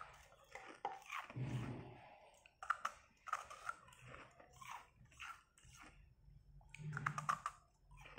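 A person biting into and chewing a block of carbonated ice: soft, crackly crunches in clusters every second or so, with a denser burst of crunching about seven seconds in.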